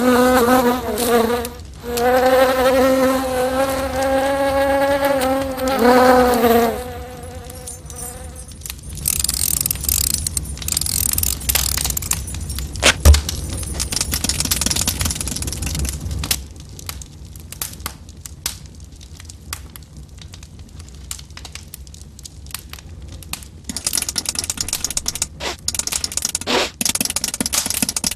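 A fly buzzing at one steady pitch, with a short break about a second and a half in, stopping about seven seconds in. After it come scratching and rustling with one sharp knock midway, then a run of quick light clicks near the end.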